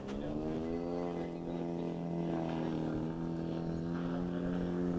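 QAV250 mini quadcopter's brushless motors and props spinning at idle while it sits on the ground, a steady drone that rises slightly in pitch at the very start and then holds.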